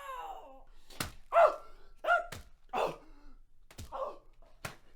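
Three sharp thunks about a second or more apart, with short vocal cries between them: the sounds of someone being hit in a scuffle.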